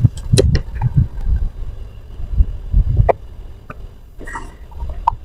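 Close-miked eating: sharp wet mouth clicks and chewing, with short low bumps scattered irregularly.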